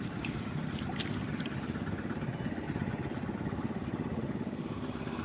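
A small engine running steadily with a fast low pulse, with a few light clicks about a second in.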